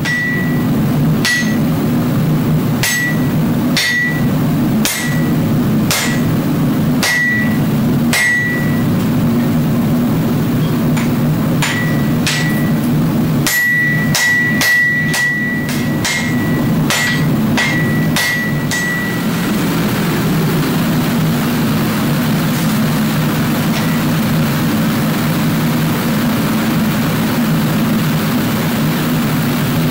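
Hammer blows on a glowing Damascus steel billet on the anvil as it is forged, each with a short ringing note. The blows come about one a second at first, then faster, and stop about two-thirds of the way through, leaving a steady low drone.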